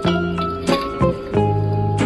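Music: a run of sustained chords, a new one struck about every half second.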